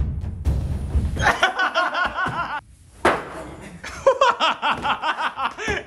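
People laughing in two bouts with a short pause between them, after drum-beat music cuts out about a second in.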